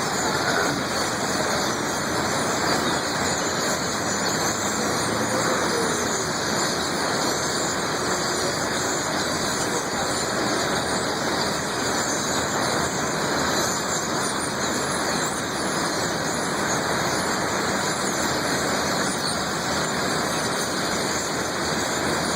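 Large flock of birds calling all at once, their many squealing calls overlapping into one steady, continuous din, with road traffic underneath.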